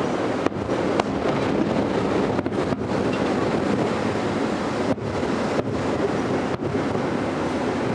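Distant aerial fireworks finale: many shell bursts overlap into a continuous rumble, with a sharper bang about half a second in and another about a second in.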